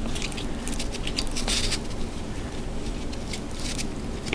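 Nylon sling webbing and its adjuster hardware being handled and pulled against a rifle stock: rustling scrapes and small clicks, with one louder scrape about a second and a half in.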